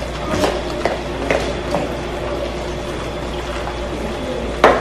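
A spoon stirring and mashing thick potato salad in a plastic bowl: a few soft scrapes and squishes about every half second, then a single sharper knock of the spoon against the bowl near the end.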